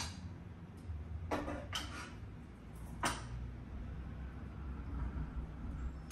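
Kitchen handling noise: a few sharp knocks and clinks of dishes and utensils, the loudest about three seconds in, over a low steady hum.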